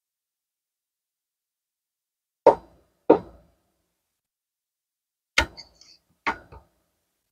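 Four sharp knocks as a screwdriver works a screw into a plastic part at a workbench: two about half a second apart a couple of seconds in, then two more near the end.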